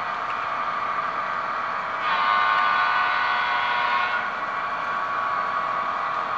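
HO scale model diesel locomotive's sound decoder blowing its multi-tone horn once, held for about two seconds, starting about two seconds in, over a steady hiss.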